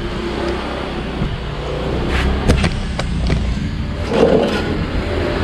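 Camera being handled and moved about: rubbing and scraping on the microphone, with several sharp knocks around the middle, over a steady low rumble.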